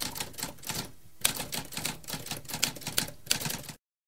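Typewriter typing: a quick run of key strikes with a brief pause about a second in, cutting off suddenly near the end.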